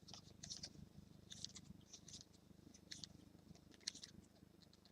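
Near silence: faint, scattered rustles and ticks of trading cards being slid and flipped by hand, over a low steady room hum.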